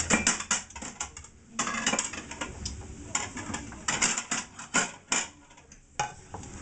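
Crockery and cutlery clattering in an irregular run of sharp clinks and knocks as a plate is picked out at the kitchen sink.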